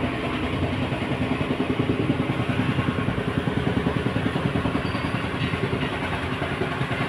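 A small engine idling steadily nearby, with a fast, even low chugging.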